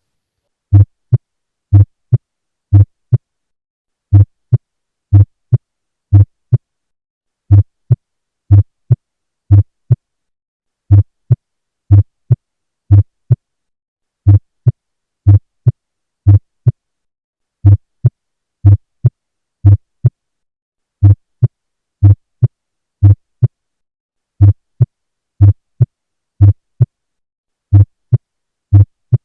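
Auscultated heart sounds as heard through a stethoscope: a steady lub-dub heartbeat in which the first heart sound is split into two close beats. The short recording repeats in a loop with a brief pause about every three and a half seconds.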